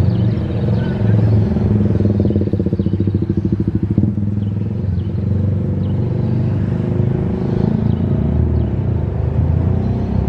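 CC 203 diesel-electric locomotive running as it rolls slowly into the station, a steady low engine note with a fast, even pulsing between about two and four seconds in.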